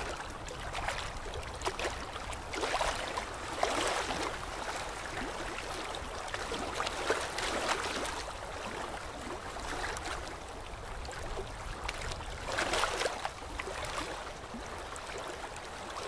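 Dental suction hissing and gurgling steadily, swelling louder about three seconds in and again near the end.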